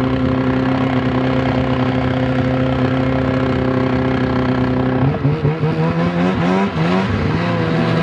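600 snowmobile's two-cylinder engine running on only one of its two cylinders. It holds a steady note, then about five seconds in drops in pitch and stumbles unevenly for a couple of seconds before settling at a lower steady idle.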